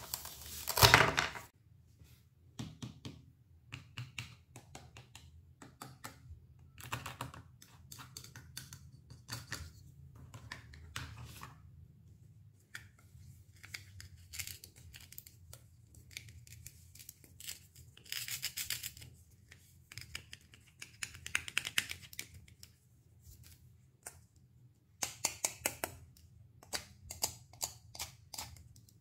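Knife cutting fresh fruit and vegetables: a loud knock about a second in, then a run of crisp slicing strokes and short crunches, and quick repeated cuts, about three a second, near the end.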